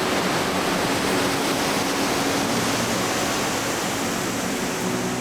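Rushing water of a mountain stream, a steady, even rush.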